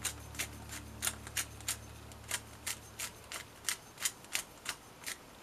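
Hand-twisted sea salt grinder grinding over the eggs: short, crisp crunching clicks about three times a second.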